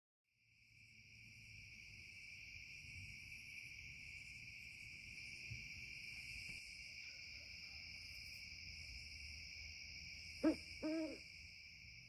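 Steady chorus of crickets trilling, with an owl hooting twice in quick succession near the end, the two hoots louder than the crickets.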